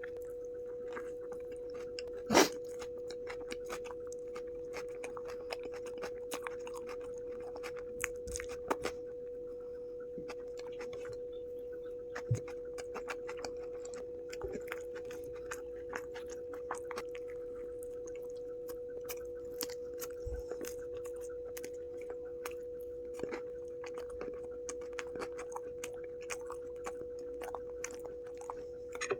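Close-miked chewing and wet mouth sounds of someone eating, a steady run of small smacks and clicks, with one sharp, much louder click about two seconds in. A steady humming tone runs underneath.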